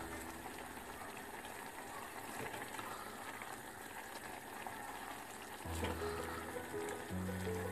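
Instant jjajang noodles boiling and bubbling in thick black-bean sauce in a pot while being stirred and lifted with tongs. Background music comes back in near the end.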